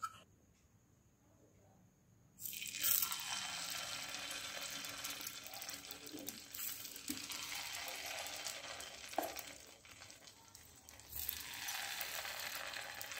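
Spoonfuls of appe batter sizzling in hot oil in the cavities of an appe (paniyaram) pan. The sizzle starts suddenly about two and a half seconds in as the first spoonful lands, eases off around ten seconds and picks up again about a second later as more batter goes in.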